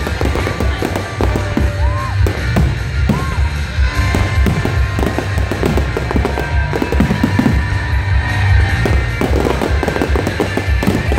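Fireworks display going off in a dense, continuous barrage: deep booms of bursting shells with rapid crackling on top.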